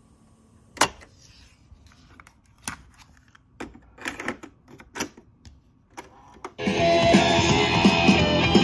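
Plastic clicks and clacks of a cassette being loaded into a Panasonic RX-5150 boombox's tape deck and the door shut, with a sharp click about a second in, then a key press. Music from the tape then starts playing loudly through the boombox's speakers about two-thirds of the way through.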